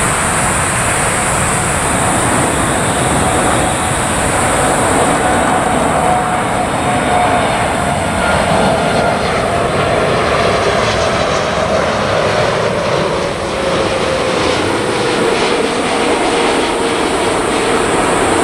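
Boeing 747-8F freighter on final approach, passing low overhead with its four GEnx jet engines running at a loud, steady level. The engines' whine holds level, then falls in pitch through the second half as the aircraft goes by.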